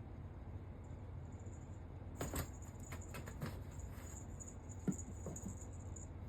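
Kittens scampering after a laser dot: a quick patter of paw taps and scrabbling about two seconds in, then a single sharper thump about five seconds in.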